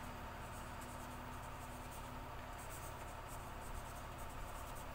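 Marker pen writing on a board: runs of short, scratchy strokes, faint over a low steady room hum.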